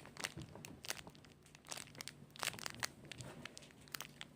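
Soft, irregular crinkling and crackling from a squishy toy and its plastic being handled, in scattered short bursts.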